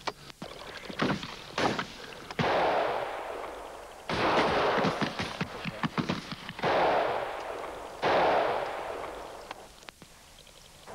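Shotgun fired at flying game: four loud shots about a second and a half to two and a half seconds apart, each ringing out and fading slowly, with fainter sharp cracks between them.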